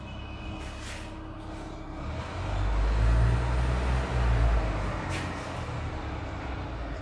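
Low rumble of a passing road vehicle, swelling about halfway through and easing off, with two brief hisses, one about a second in and one after five seconds.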